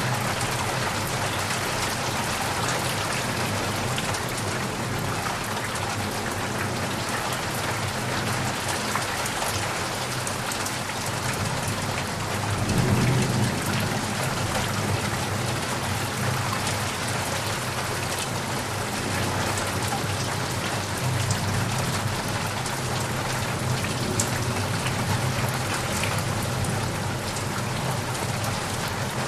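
Heavy rain falling steadily on leaves and puddles, with a brief low rumble of thunder about halfway through.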